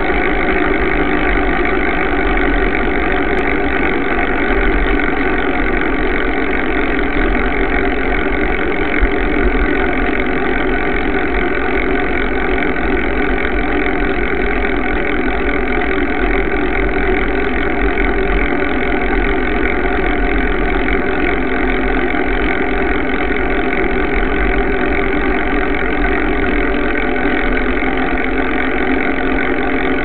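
Steady roar of road and wind noise from a mountain bike rolling along asphalt, its knobby front tyre running close to the microphone, unbroken at an even level.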